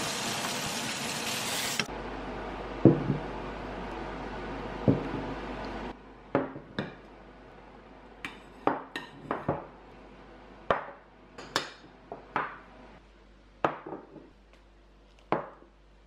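A frying pan sizzling for the first few seconds, with two knocks. Then ceramic bowls, plates and glass jars are set down one after another on a wooden table, about a dozen light knocks and clinks.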